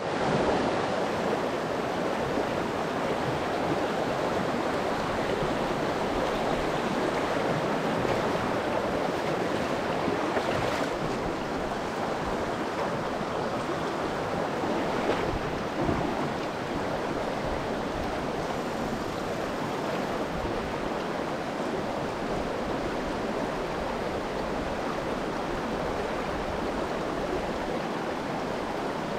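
Small rocky trout stream running over stones in shallow riffles, a steady rushing of water.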